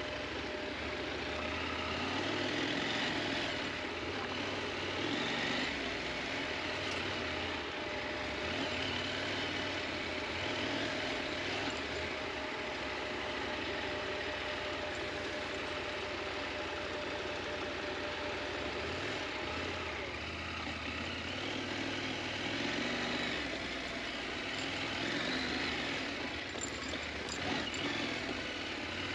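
KTM 890 Adventure's parallel-twin engine running steadily as the motorcycle is ridden off-road.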